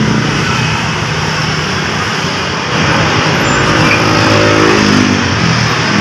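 Motor vehicle engine noise with steady traffic hum. About three seconds in, a louder engine comes up with a bending pitch, like a vehicle passing by.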